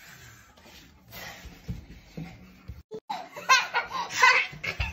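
Two young girls laughing hard, starting about three seconds in, after some rustling and a few soft thumps as they drop onto a wooden floor.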